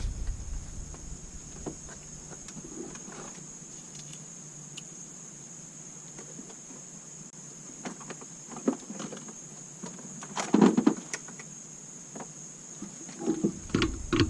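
Scattered light clinks and knocks of hand tools and metal engine parts being handled, with a cluster of louder knocks about two-thirds of the way through and more near the end, over a faint steady high whine.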